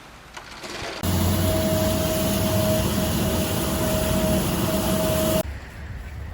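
An engine running steadily with a steady whine over it, cutting in suddenly about a second in and cutting off suddenly near the end.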